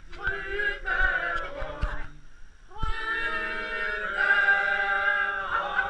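A group of voices singing a Christmas carol together in long held notes, with a short break about two and a half seconds in.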